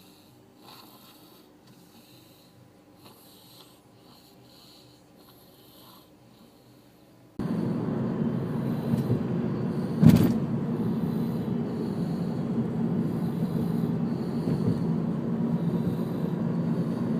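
Soft snoring from a sleeper, then about seven seconds in a sudden loud, steady rushing noise takes over, with a single knock about ten seconds in.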